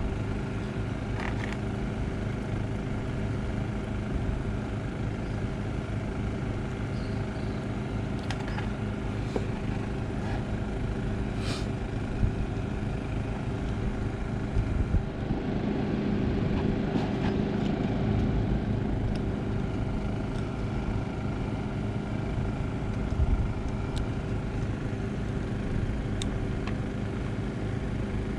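A motor running steadily with an even hum, with a few light clicks and taps of small parts being handled.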